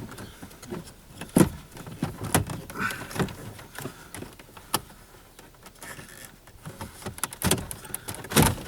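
Irregular clicks, taps and knocks of a car's plastic dash trim and headlight switch assembly being handled and worked loose by hand, with sharper knocks about a second and a half in and again near the end.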